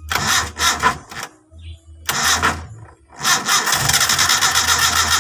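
Starter motor cranking a carburetted engine that has not run for a long time, in three tries: a short pulsing burst, a brief one about two seconds in, and a longer one from about three seconds in.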